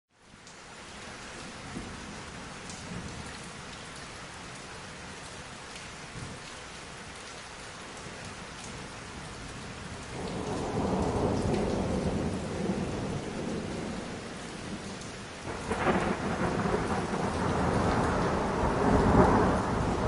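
Thunderstorm: a steady hiss of rain, with thunder rolling in about halfway through and a sudden louder peal near the end that keeps rumbling.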